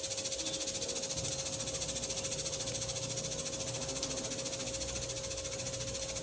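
Hot oil sizzling steadily around whole spices (bay leaf, cumin, cloves, cinnamon, cardamom) frying in an aluminium pot, with a steady hum beneath it.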